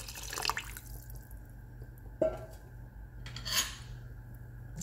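Water poured from a glass cup into a stainless steel pot of rice and spinach, splashing for the first second or so. A single knock follows about two seconds in, then another short rush of liquid, over a low steady hum.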